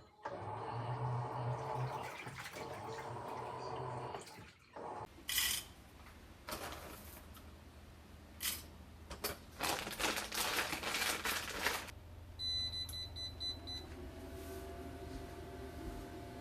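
A household appliance's electronic beeps, a short run of quick pulses about two-thirds of the way through, amid knocks and handling noises. A steady machine hum stops about four seconds in and a new steady hum starts near the end.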